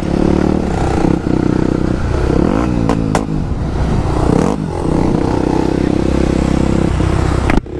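Honda XR 250 Tornado's single-cylinder four-stroke engine running under throttle as the dirt bike rides along a dirt track, heard from on board. The revs dip and climb again about three seconds in, and the sound drops out briefly near the end.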